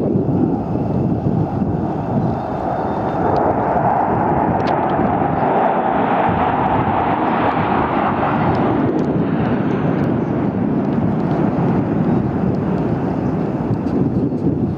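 Military fighter jet flying overhead, a steady loud jet noise whose brightest part swells mid-way and drops lower about nine seconds in as the aircraft passes.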